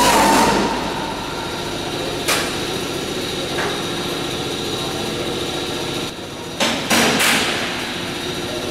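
Sharp metal knocks, like hammer blows: one about two seconds in, a faint one a little later, and two close together near the end, over a steady hum.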